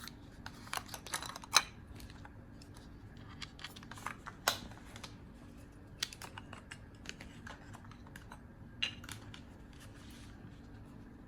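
Small clicks, taps and rattles of a mirrorless camera and its kit lens being handled as the lens is fitted onto the Canon M50 Mark II body, with a few sharper clicks spaced several seconds apart.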